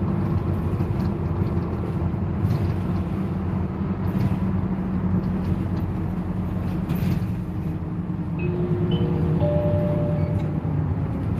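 Steady engine and road noise inside a moving route bus, with a few light clicks and rattles. Near the end a whine rises in steps.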